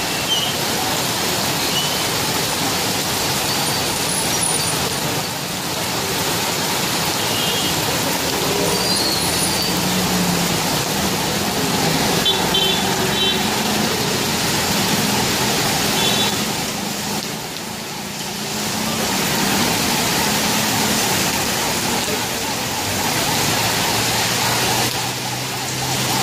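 Heavy rain pouring onto a flooded city street, a steady hiss, with vehicles driving through it and their tyres swishing on the wet road.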